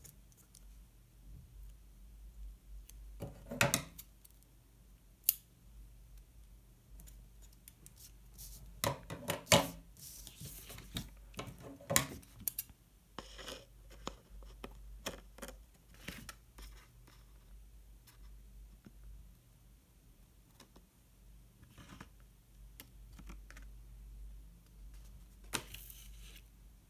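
Scissors snipping now and then, trimming stickers that hang over the edge of a planner page, amid paper and sticker-sheet rustling. The sounds come in scattered short bursts, loudest about nine to twelve seconds in.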